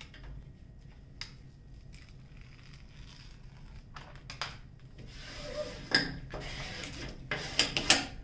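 Protective release paper being peeled back from a diamond painting canvas's adhesive and handled: a few soft clicks at first, then louder paper crinkling and crackling in the second half.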